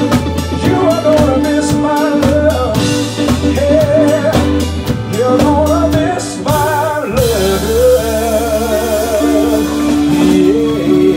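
Live band playing with a singer: a male voice sings with vibrato over a drum kit, electric bass and guitar. About seven seconds in, a cymbal crash and the drum beat stops, leaving held bass and vocal notes.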